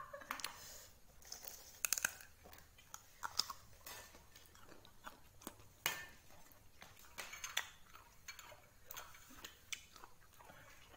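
A person chewing food, with scattered short clicks and taps of a plastic dish being handled.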